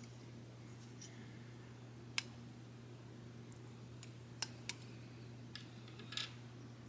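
A few sharp little plastic clicks from snap-fit model-kit pieces being handled and pressed together: one about two seconds in, a couple more around four and a half seconds, and a short cluster near the end, over a steady low hum.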